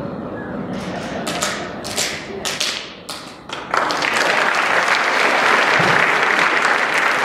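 A few sharp, irregular taps, then audience applause breaking out about three and a half seconds in and running on loud and even.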